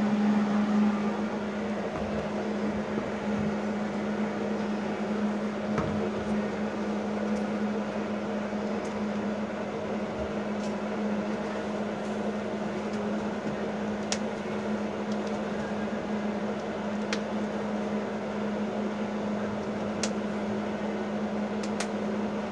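Welding machine running, a steady hum with a few faint ticks.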